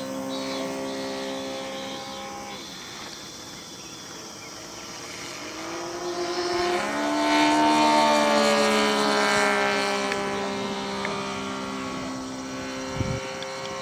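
Radio-controlled model airplane's motor and propeller droning overhead during a figure-eight. Around seven to eight seconds in it passes close: it gets louder, its pitch rises, then the pitch falls as it moves away. A short low knock comes near the end.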